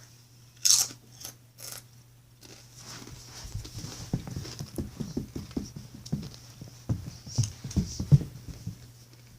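A few sharp clicks, then someone chewing crunchy chips close to the microphone: a quick, irregular run of low crunches starting about two and a half seconds in.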